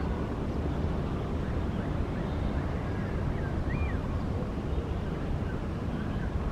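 Low, steady rumble of an Airbus A350-941's Rolls-Royce Trent XWB engines as the jet climbs away after takeoff, heard from a distance. A few faint high chirps sound over it.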